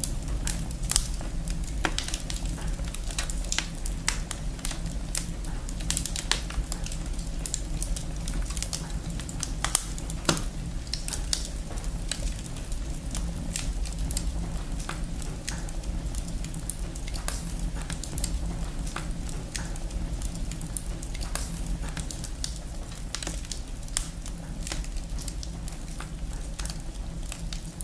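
Wood fire burning in a fireplace, crackling with frequent sharp pops over a steady low rumble.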